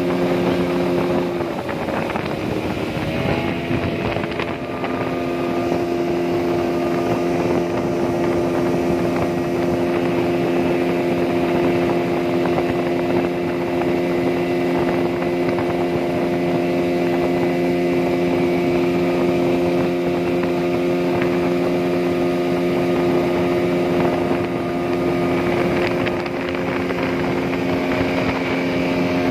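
A speedboat's outboard engine runs at high speed, carrying a full load of passengers, with water and wind rushing past. About two seconds in, the engine note sags briefly, then climbs back and holds a steady, slightly higher pitch.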